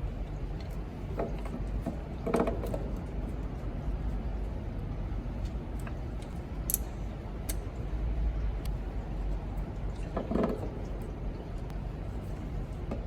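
Hand work in an engine bay: scattered light clicks and clinks of parts and tools, with two short metallic clanks, over a steady low hum.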